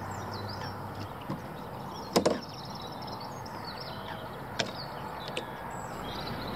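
Fishing tackle being handled at the bankside. There is one sharp knock about two seconds in, and a few lighter clicks follow later.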